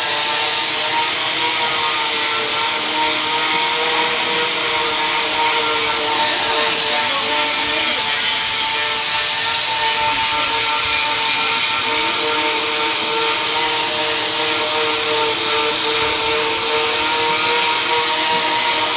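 Handheld electric polisher with a foam pad running steadily while buffing a stainless steel sheet: an even motor whine over a hiss.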